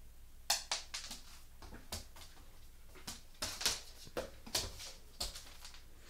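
Irregular sharp clicks and taps of a young American Staffordshire Terrier's claws on a laminate floor as the dog moves quickly about, starting about half a second in.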